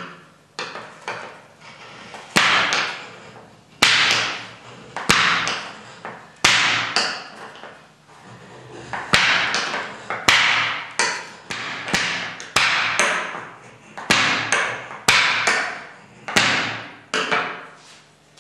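Steel drawn repeatedly along steel as a card scraper's edge is worked with a steel tool: about one stroke a second, each a bright metallic rasp that starts sharply and fades over most of a second.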